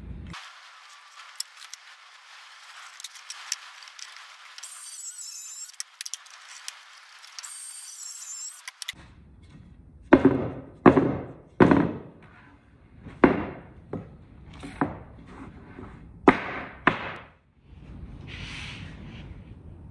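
A pencil scratching marks onto a timber batten, with two louder stretches of scratching, then a run of about ten sharp knocks of wooden battens against each other and the workbench.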